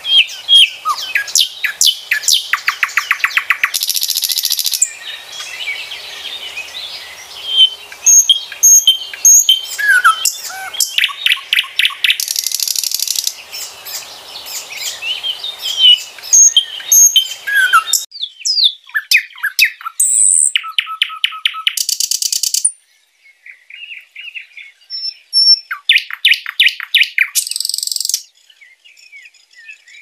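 Nightingale singing: varied phrases of short whistles and slurred notes, broken up by fast rattling runs of rapidly repeated notes about a second long, with short pauses between phrases.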